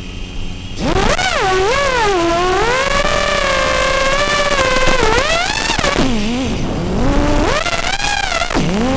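FPV quadcopter's brushless motors and propellers whining, with a low hum at first and then a loud jump in pitch about a second in as the throttle comes up. The pitch keeps rising and falling with the throttle, dropping twice in the second half and climbing again near the end.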